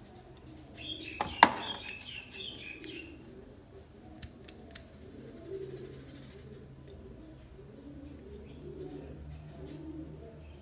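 Doves cooing over and over in the background, with small birds chirping for a couple of seconds about a second in. A single sharp click, the loudest sound, comes about a second and a half in, and a few lighter clicks follow around four to five seconds in.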